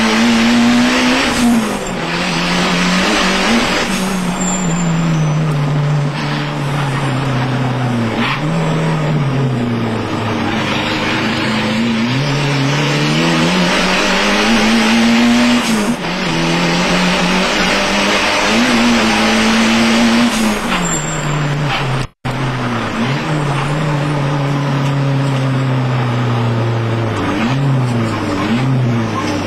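Turbocharged 2.0-litre four-cylinder engine of a 1994 Mitsubishi Eclipse GST race car, heard from inside the stripped cabin at racing speed. It revs up and falls back again and again as the car accelerates and shifts, over a steady rush of road and wind noise. The sound cuts out for an instant about three-quarters of the way through.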